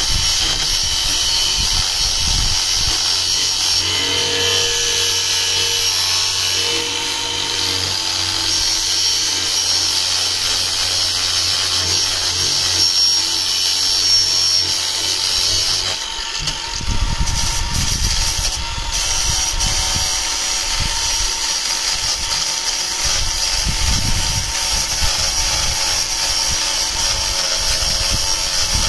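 Angle grinder with a cutting disc running under load, cutting a fiberglass bulkhead panel along a marked line; the steady high whine dips briefly about halfway through, then carries on cutting.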